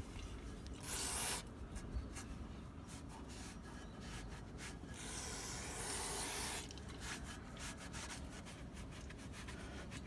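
Rubbing and scraping on drum brake parts: two longer hissing strokes, one about a second in and one from about five to six and a half seconds in, with scattered small clicks and taps between them.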